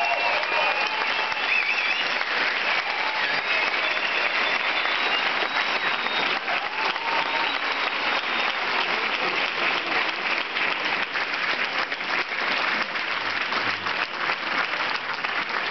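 A large crowd applauding steadily, a dense patter of many hands clapping, with a few voices calling out over it in the first few seconds.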